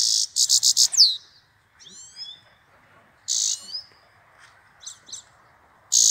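Goldfinch calling: harsh, buzzy churrs, each a quick run of pulses ending in a falling note, come at the start, about three seconds in and near the end. Short rising twittering notes come about two seconds in.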